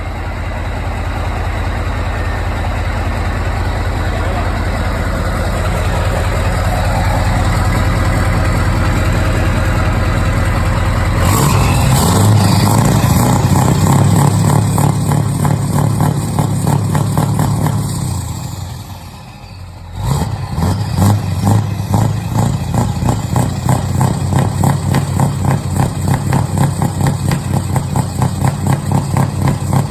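Scania V8 truck engine running: a steady deep rumble that grows slowly, then turns suddenly louder and fuller about a third of the way in. It dies away, then comes back abruptly as an uneven pulsing throb.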